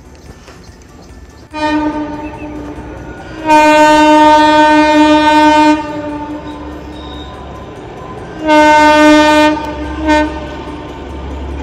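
A horn blowing several times: a softer blast about a second and a half in, then a long loud blast of about two seconds, a shorter blast later, and a quick toot near the end.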